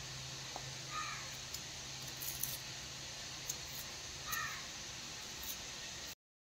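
A crow cawing twice, short calls about three seconds apart, over a steady hiss with a few faint clicks. The sound cuts out briefly near the end.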